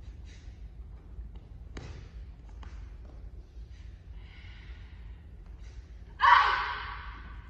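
Jiu-jitsu kata performer's sharp breaths and a few soft thuds, then a loud kiai shout about six seconds in: one yell that trails off over about a second.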